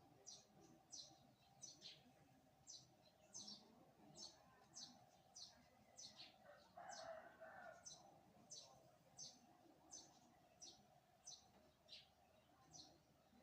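Faint bird chirps, short falling notes repeating about one and a half times a second, over a faint steady hum, with one louder, lower call lasting about a second around seven seconds in.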